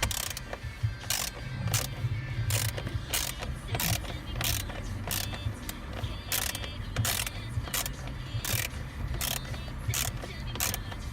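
Hand ratchet clicking about twice a second as it backs out the screws of a steering column cover.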